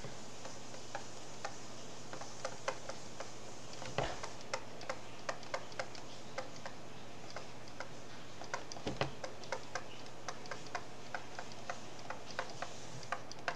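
A stylus tapping and clicking on a tablet while handwriting, as irregular light clicks a few times a second, with a slightly heavier knock about four seconds in and again about nine seconds in, over a faint steady low hum.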